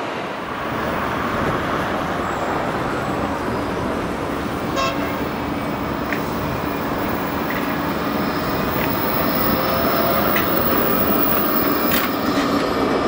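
Electric street trams running on rails: a steady noise of wheels and traffic, joined about four and a half seconds in by a steady electric hum, with a few light clicks.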